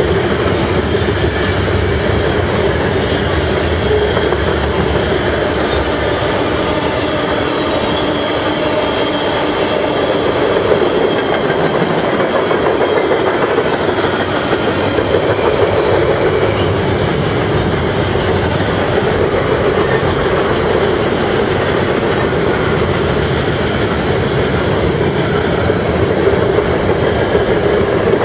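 Freight cars of a Canadian National manifest train rolling past close by: a steady rumble and clatter of steel wheels on the rails.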